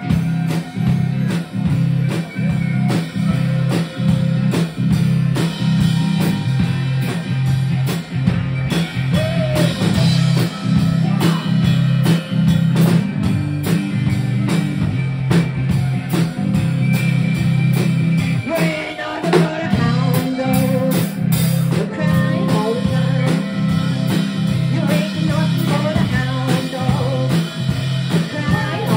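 Live blues-style rock and roll played by a trio: acoustic guitar strummed with drum kit backing, a woman singing, and a harmonica.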